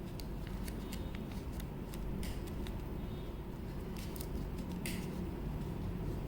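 Faint small clicks and rustles of hands handling a small folding knife and a folded paper bill, scattered irregularly, over a steady background hiss from the microphone.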